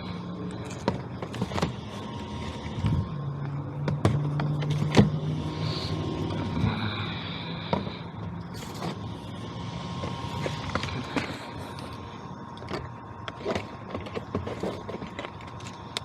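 Air filters being handled and slid into a furnace's filter rack, with scattered knocks and scrapes. Under them runs a steady low hum, louder for a few seconds from about three seconds in.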